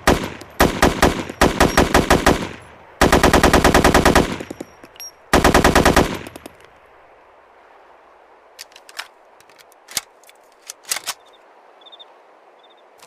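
AKMS 7.62×39mm assault rifle firing fully automatic, in several short bursts and then two longer bursts of about a second each, with echo trailing after them. Near the end come a few fainter, separate sharp cracks.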